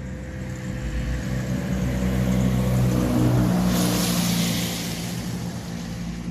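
A motor vehicle driving past: its engine hum swells to its loudest about three seconds in, with a brief rushing hiss around four seconds in, then fades away.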